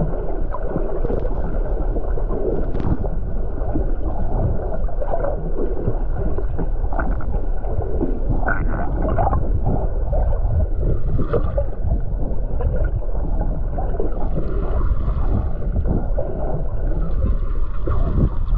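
Muffled underwater noise picked up by a camera held below the surface while snorkeling: a steady dull rush and rumble of moving water with scattered clicks and knocks.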